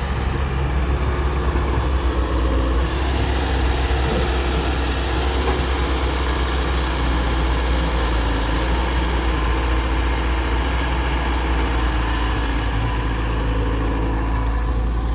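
Heavy diesel engine of earth-moving machinery running steadily at an even level, with a strong low drone.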